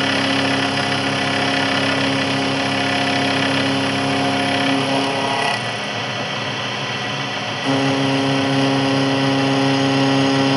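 Sharp knee mill running, its spindle driving an endmill that cuts a 5-degree angle on the side of a small metal clamp block: a steady machine hum with several held tones. About five and a half seconds in the sound drops a little and one tone falls away, returning about two seconds later.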